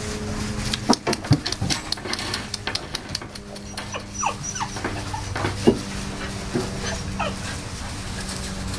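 Pointer puppies at play: a run of quick clicks and knocks in the first few seconds, then several short high whines that fall steeply in pitch.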